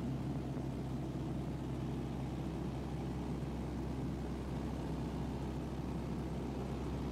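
Single-engine light aircraft's engine running steadily, heard from inside the cabin as a constant low drone.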